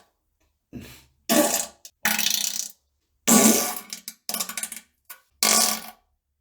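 A run of about six short, raspy farts, one after another with brief silent gaps, each lasting under a second; the first is faint and the rest are loud.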